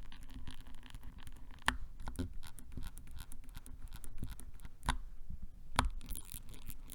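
Durock Ice King tactile switch on a Keychron C2 Pro 8K, held down while its stem is wobbled, giving a faint scratchy squeak. Small clicks run throughout, with a few sharper clicks about two, five and six seconds in.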